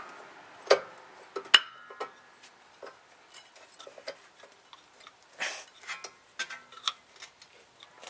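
Light metallic clicks and taps of a rear brake pad and its spring clips being worked by hand into the caliper bracket, with two sharper clicks in the first two seconds and many lighter ones scattered after.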